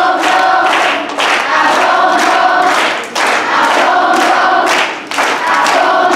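A group of children singing together in unison, in phrases of about two seconds separated by brief breaths, with sharp accents on the beat.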